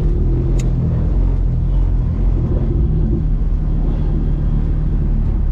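Toyota 2ZZ-GE four-cylinder engine running at a steady low drone as the car drives along.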